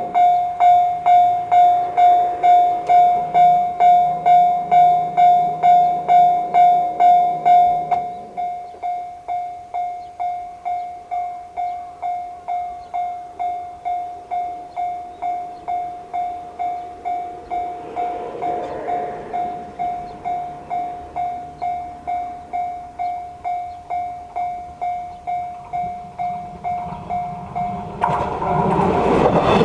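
JR standard electronic level-crossing warning bell ringing steadily at about two strokes a second, dropping to a lower volume about eight seconds in. Near the end the noise of a KiHa 110 series diesel railcar arriving at the crossing rises over it.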